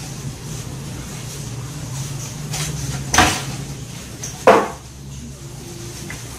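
Two short clatters of kitchenware being handled, about a second and a half apart, over a steady low hum.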